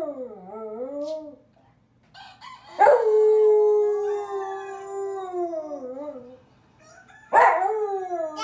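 Dog howling in long drawn-out calls. One starts sharply about three seconds in, holds its pitch for about three seconds and then slides down, and another begins near the end.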